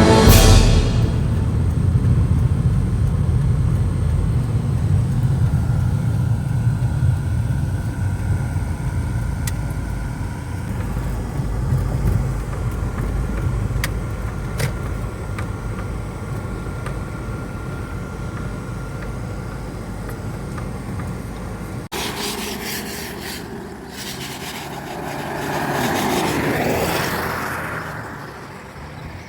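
Car on the move: a steady low road and engine rumble. About three-quarters of the way through the sound cuts off abruptly, and then a vehicle rises and fades as it passes.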